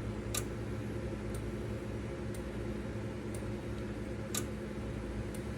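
A steady electrical or mechanical hum with a faint sharp tick about once a second.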